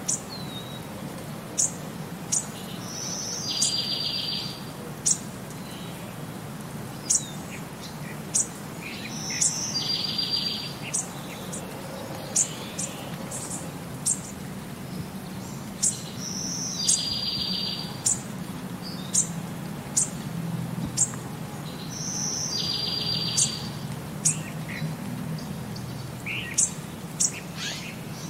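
Small songbirds chirping in a looped nature-ambience track: short, sharp high chirps every second or so, and a buzzy trill that comes back about every six and a half seconds, over a steady low hum.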